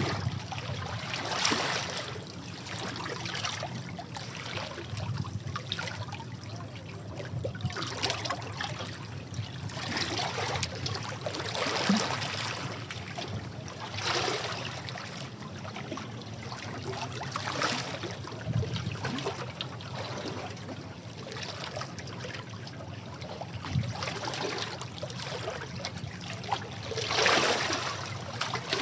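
Sea waves washing against rocks: a continuous rush of water with surges every few seconds, the largest near the end.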